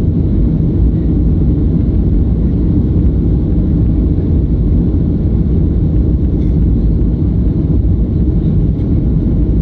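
Steady low rumble in the passenger cabin of a Boeing 737-500 climbing out after takeoff: the noise of its CFM56-3 turbofan engines and the airflow, heard from a window seat over the wing.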